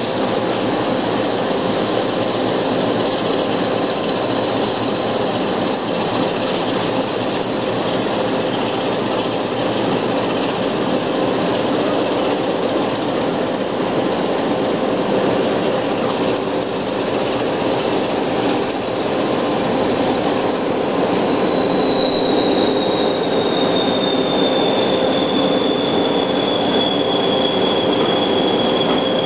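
Class 20 diesel-electric locomotive's English Electric eight-cylinder engine running steadily as the locomotive moves, with a high turbocharger whistle over it. The whistle rises slightly and holds, then falls in pitch about two-thirds of the way through.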